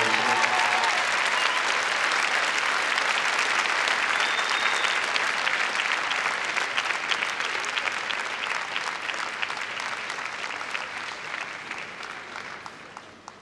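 A large crowd applauding steadily with dense hand clapping, dying away over the last few seconds.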